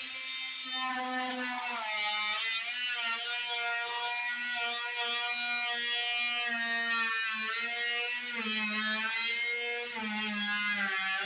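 Power drill running continuously under load, likely boring a large hole, its motor whine wavering in pitch as the cut loads and frees it.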